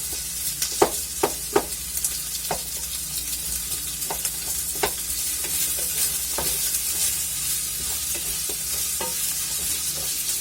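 Sliced pork and onion sizzling in a thick frying pan while being stir-fried: a steady hiss, with the utensil knocking and scraping against the pan at irregular moments, more often in the first few seconds.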